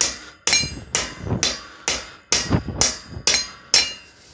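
Hammer blows on the end of a steel EMT conduit pipe resting on an anvil: nine sharp strikes about two a second, each with a short metallic ring, flattening the pipe end.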